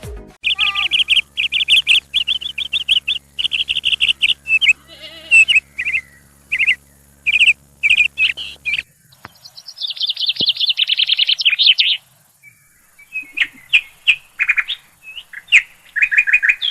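Small birds chirping: quick runs of repeated high chirps, with a fast trill of notes lasting a couple of seconds around the middle.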